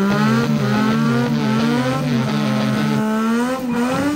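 Motorcycle engine held at high revs during a tyre-smoking burnout, its pitch wavering up and down, with a brief dip and pick-up near the end.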